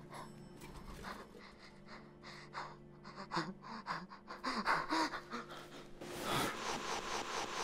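A person gasping and breathing hard in quick, ragged breaths, some with a little voice in them, coming faster toward the end.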